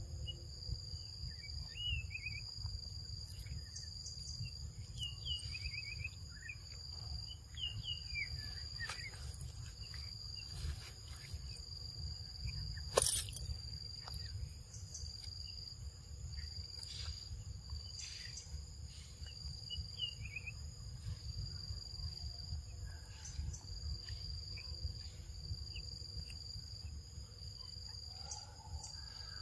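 Steady chorus of insects, several high continuous tones holding throughout, over a low rumbling noise. A few short bird chirps come through, and there is one sharp click about halfway through.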